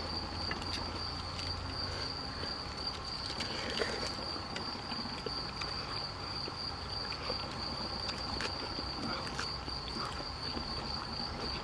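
Crickets trilling in a steady high-pitched, unbroken drone, with faint scattered clicks and rustles of hands handling food at the table.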